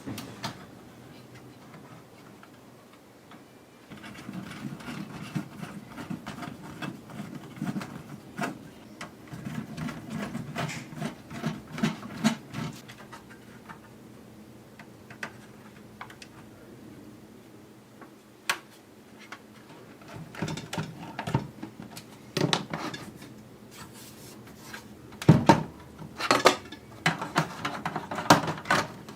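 Clicks, knocks and rubbing of plastic and metal PS4 console parts being handled and fitted back together. A low rattling buzz runs for several seconds in the first half, and the loudest knocks come near the end.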